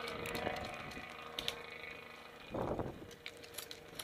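Light rustling of movement through dry brush with scattered sharp clicks, over a faint steady hum that fades after about a second; a louder rustle comes about two and a half seconds in.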